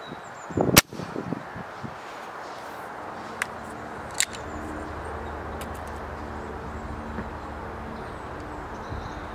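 Air Arms ProSport spring-piston air rifle fired once: a single sharp crack about a second in. A few faint clicks follow.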